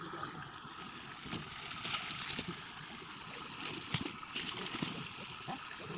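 Sugarcane juice boiling in a large open pan while its froth is skimmed with a cloth strainer: a steady bubbling hiss, with louder sloshing scoops about two and four seconds in.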